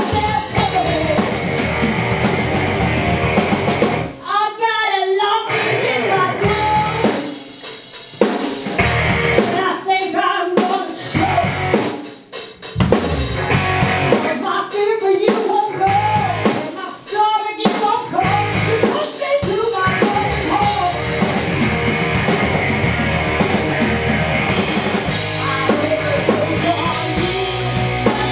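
Rock band playing live: an electric guitar lead with bending, wavering notes over drums and bass, the low end dropping out in short stop-start gaps, then the full band playing steadily through the last third.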